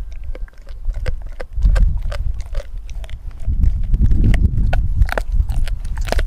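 Doberman gnawing a raw frozen pig's foot close to the microphone: irregular sharp clicks and crunches of teeth on bone and frozen meat, over a low rumbling that swells about halfway through.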